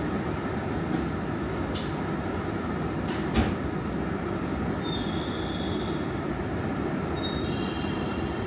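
Tsukuba Express electric train standing at the platform with its doors open, its onboard equipment giving a steady low hum. Two knocks, the louder about three and a half seconds in, and short high-pitched tones in the middle and near the end.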